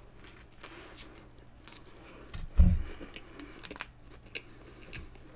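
Close-miked biting into and chewing a cheeseburger: wet mouth sounds and small clicks. A brief low thump about two and a half seconds in is the loudest sound.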